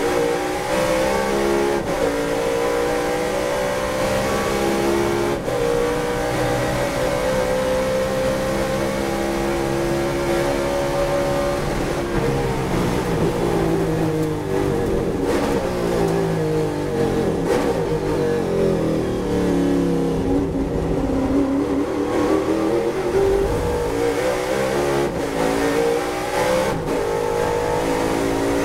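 Ford Falcon touring car's V8 engine heard from the cockpit at racing speed: it revs up through the gears with short breaks at each upshift, then the pitch falls with throttle blips as it brakes and downshifts for a corner, and climbs again as it accelerates out near the end.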